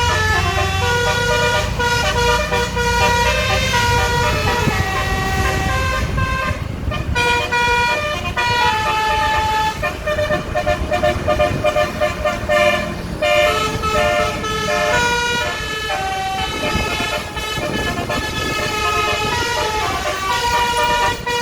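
Telolet basuri musical bus horn playing a quick melody of held notes that step up and down in pitch, over a low engine rumble.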